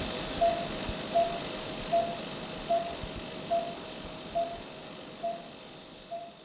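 Patient monitor beeping steadily in time with the pulse, a short mid-pitched beep about every 0.8 seconds, over a steady hiss and a faint high whine; the sound fades out near the end.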